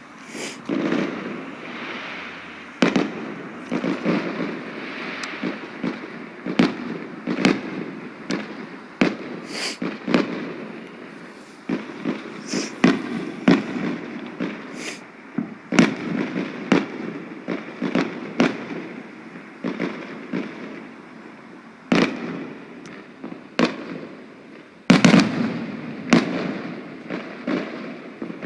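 Firework display: a steady run of shell bursts and crackling reports, at times several a second, with a sharp, loud bang near the end.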